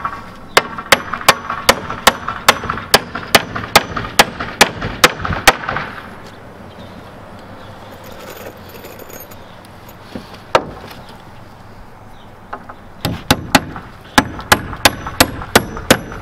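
A steel hammer driving nails into a wooden 2x4 brace on a stud wall frame: a fast run of sharp blows, about three a second, then a pause with a single knock, then another run of blows near the end. The brace is being nailed on to hold the loosened wall up.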